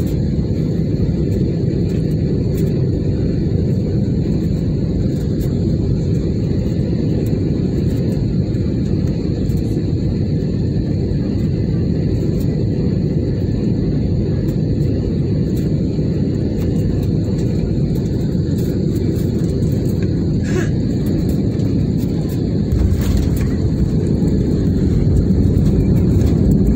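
Steady low rumble of engines and airflow heard inside the cabin of an Airbus A320-family jet airliner on final approach, growing louder in the last few seconds as it touches down on the runway and raises its spoilers.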